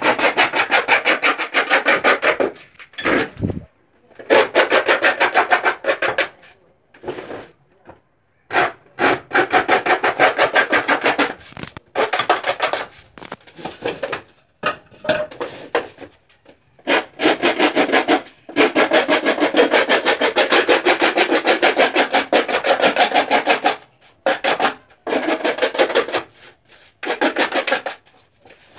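Hand file rasping fast back and forth along the edge of a laminated (sunmica) kitchen door panel, in bouts of a few seconds with short pauses between them.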